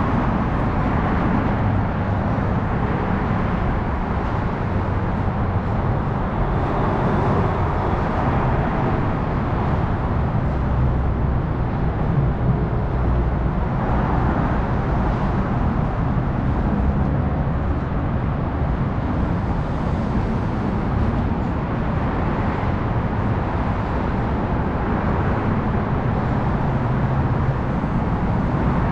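Steady road traffic noise from the elevated freeway ramps overhead.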